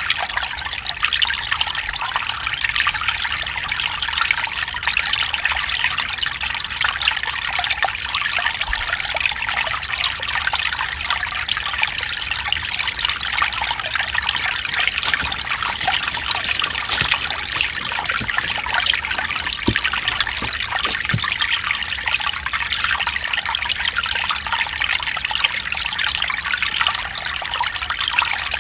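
Mountain stream water trickling and splashing over rocks in a steady, even flow.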